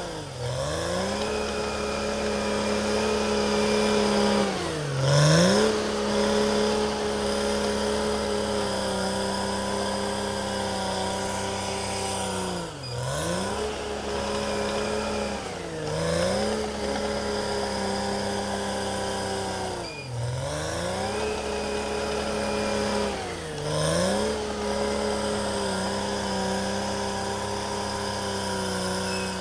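Cat D6R XL bulldozer's diesel engine running hard as the dozer pushes soil and brush. Its pitch sags sharply and climbs back every few seconds, about six times.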